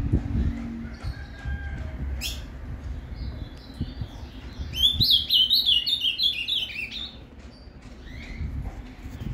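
Ultramarine grosbeak (azulão) singing in the Paraná song style: one quick phrase of about two seconds, a run of clear notes stepping down in pitch, about halfway through, after a few scattered short chirps. A low rumble lies underneath.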